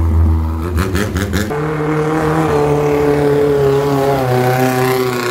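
Longtail boat engines running at high revs as the boats speed past one after another; the engine note bends about a second in, then another engine takes over with a steady drone that falls slightly near the end as it goes by.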